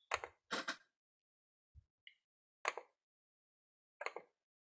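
A handful of short, separate clicks and knocks, about five in all with one low thud among them, from someone working a computer to bring up a report. Each sound cuts off abruptly into silence.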